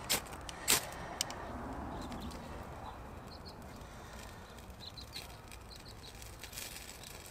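A few quick, sharp scrapes of the WESN Microblade's spine struck down a ferrocerium rod to throw sparks onto tinder, all within the first second and a half and loudest just before a second in. Faint bird chirps in the background.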